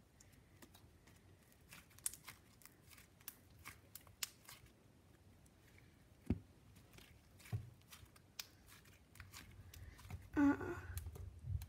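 White marshmallow slime, softened with baby lotion, kneaded and stretched by hand: scattered small crackles and pops, with a brief louder pitched sound near the end.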